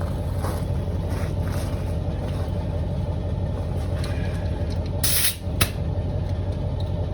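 Air compressor running with a steady low hum, with short bursts of hissing air about five seconds in and again near the end.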